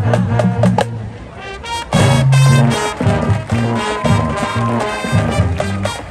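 High school marching band playing, with brass and drums. The band thins out and drops in volume about a second in, then comes back in loud and full with a sustained brass chord about two seconds in.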